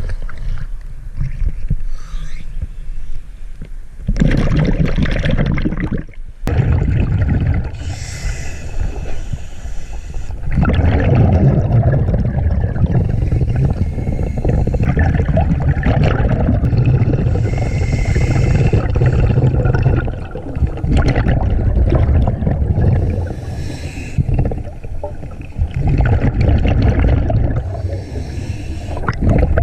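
Scuba diver breathing through a regulator underwater: a continuous low rumble broken by recurring bursts of exhaled bubbles every several seconds.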